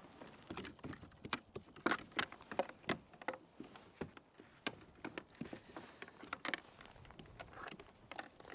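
Irregular clicks, taps and rattles of a fish being unhooked aboard a plastic kayak, with metal tackle clinking and knocks on the hull. The clicks come thickest in the first three seconds, then thin out.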